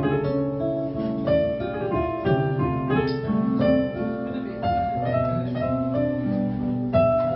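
Electronic keyboard in a piano voice and an acoustic guitar playing an instrumental passage of a jazz ballad, with notes held and changing about once a second and no voice.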